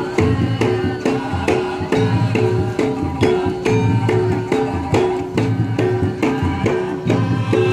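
Traditional dance music: drums and tuned gong-like metal percussion play a steady repeating pattern, about two strokes a second.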